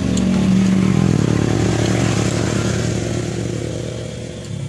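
Engine of a passing vehicle, growing louder to a peak about a second in and then fading away, its pitch dropping slightly as it goes by.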